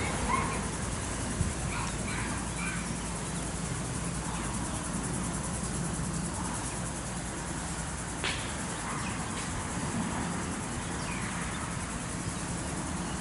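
Outdoor ambience: a steady low hum with faint, scattered bird chirps, and a single sharp click about eight seconds in.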